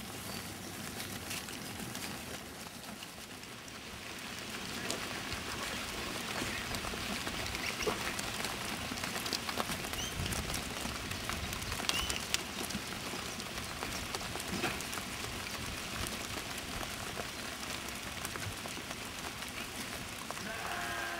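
Pattering and shuffling of many sheep's hooves as a flock of sheep moves along a road, a dense rain-like clatter that gets louder after a few seconds. A sheep bleats right at the end.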